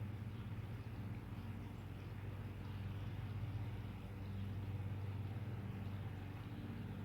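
A steady low hum of a running motor, even in pitch and level throughout.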